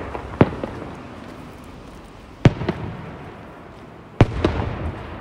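Aerial firework shells bursting: sharp bangs at the start, just under half a second in, about two and a half seconds in and about four seconds in, the last two the loudest, each followed by a rumbling echo.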